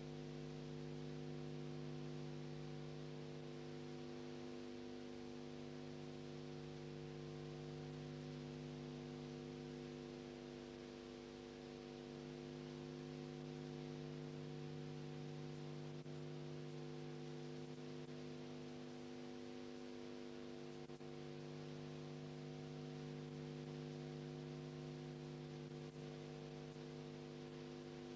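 Steady electrical mains hum with a buzzy stack of overtones over faint hiss, unchanging throughout.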